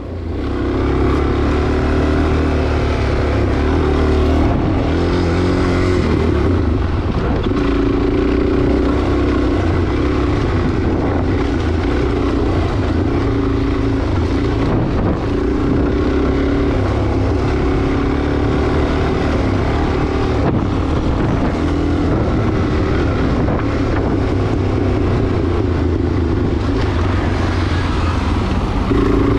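Motorcycle engine running steadily at cruising speed, heard from on board, with wind rushing over the microphone.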